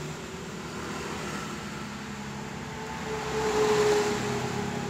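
Steady background drone of a running vehicle engine. It grows louder about three seconds in and eases off near the end.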